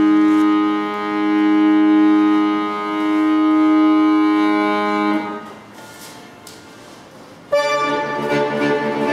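Bayan (Russian chromatic button accordion) holding a sustained chord that swells and eases with the bellows, released about five seconds in. After a pause of about two seconds, a loud chord and a fast passage of quickly changing notes start suddenly.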